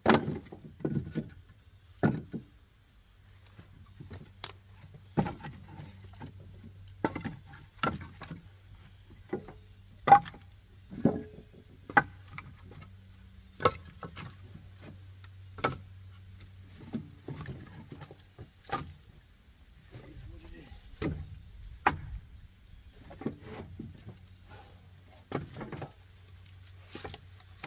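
Split firewood pieces knocking and clunking against one another as they are picked up and stacked on a woodpile, a sharp wooden knock every second or two.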